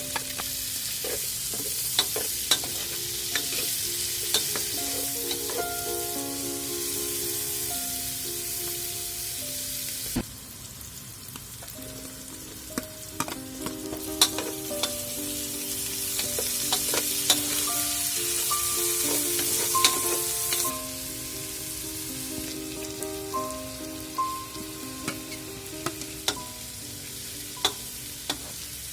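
Food sizzling in hot oil in a pan while being stirred, with repeated clicks of a utensil against the pan. The sizzle drops back about ten seconds in, swells again, and eases off again about twenty seconds in.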